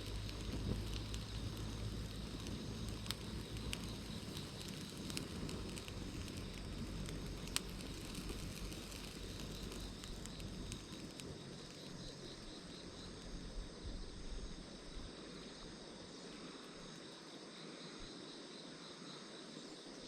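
Freshly lit self-igniting charcoal burning vigorously in a small B6 tabletop grill: a low rush of flame with scattered crackles and pops, including one sharp pop midway. It settles down after about ten seconds, leaving a steady chirping of crickets.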